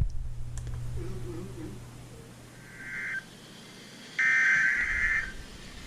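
Emergency Alert System SAME header: short bursts of buzzy digital data tones, a faint one about three seconds in and a louder one about a second later. A steady low hum sits under them.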